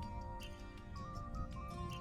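Background music: a gentle melody with a light, regular tick keeping the beat.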